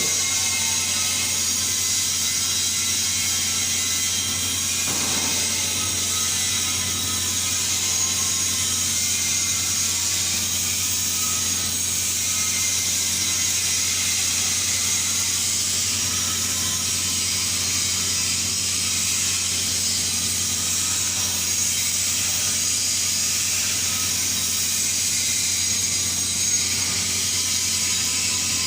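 Gas tungsten arc (TIG) welding arc burning steadily: a continuous electric hiss with a low hum underneath.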